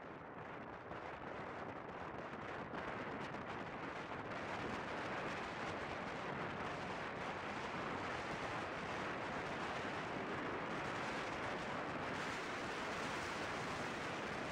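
Wind rushing and buffeting over the microphone of a motorcycle rider moving at highway speed. It grows louder over the first few seconds as the bike speeds up, then holds steady.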